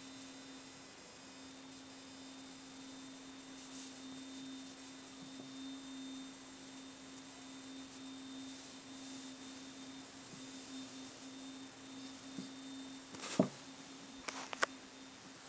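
A faint, steady hum held at one pitch, with a few sharp clicks near the end.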